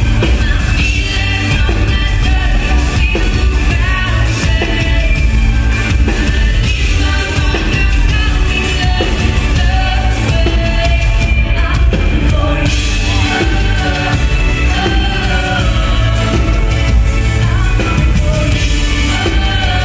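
Electropop band playing live: a woman singing lead over synth keyboards, electric guitar and drums, with heavy bass.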